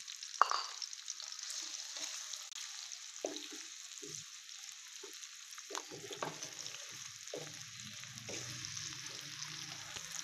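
Chopped red onion sizzling in hot oil in a metal frying pan, with a steady hiss. A wooden spatula stirs it, scraping and knocking against the pan now and then.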